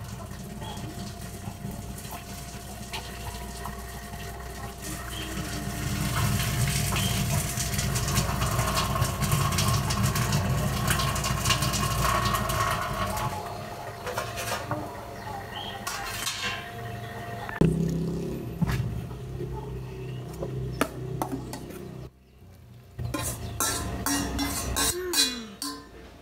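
Water splashing through a stainless steel strainer into a metal kitchen sink for several seconds as boiled instant noodles are drained, with metal clattering. Near the end a metal spoon and pot clink sharply against each other and a bowl.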